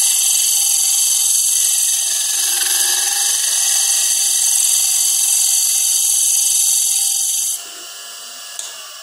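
Hunter No. 5 cupped carbide tool shear-scraping the inside of a spinning end-grain wooden vessel on a lathe: a loud, steady, high-pitched hiss of the cut. It stops suddenly about seven and a half seconds in as the tool comes out, leaving a quieter hum.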